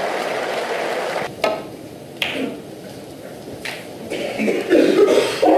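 Snooker crowd applauding, cut off about a second in. A quieter stretch follows with a few sharp knocks, then a louder burst of crowd noise near the end.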